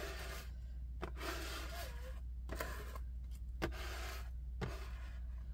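Repeated rubbing and scraping on a desk surface, in several strokes about a second long, with a few light clicks between them.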